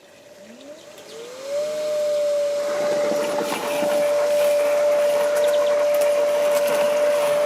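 Gardena R40Li robotic lawnmower's blade motor spinning up: a whine rises in pitch over the first couple of seconds, then holds as a steady singing tone over the mower's running noise.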